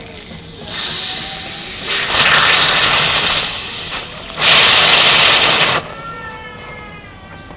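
Pressurised acetylene from calcium carbide reacting with water hissing out of a swollen plastic soft-drink bottle as its screw cap is loosened. The hiss starts about a second in, grows louder in surges with a short dip, is loudest near the end and then cuts off suddenly as the pressure is spent.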